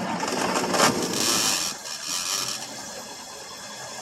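1963 Ford Thunderbird's 390 FE V8 running after a cold start, louder for the first couple of seconds, then settling to a lower, steady idle. The power steering pump is noisy.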